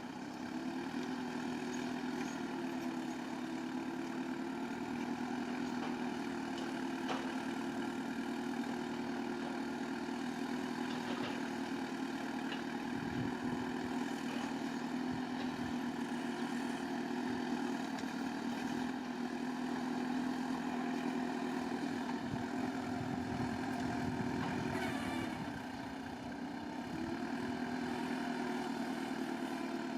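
Bulldozer's diesel engine running steadily while working, its pitch and loudness sagging briefly near the end before picking back up.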